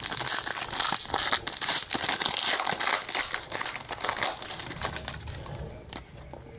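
Trading card pack wrapper crinkling and tearing as it is ripped open by hand, a dense crackle that dies down about five seconds in.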